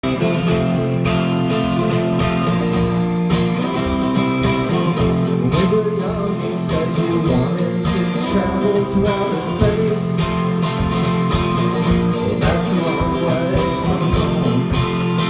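Live band music: an electric guitar played through an amplifier over a drum kit keeping a steady beat.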